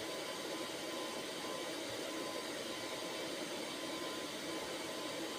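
Steady, even hiss with a faint, steady 1 kHz test tone beneath it: the CB receiver reproducing the generator's 1 kHz-modulated test signal.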